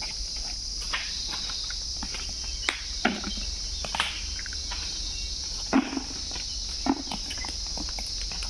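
A steady, high-pitched insect chorus, with scattered short knocks and thuds a few times.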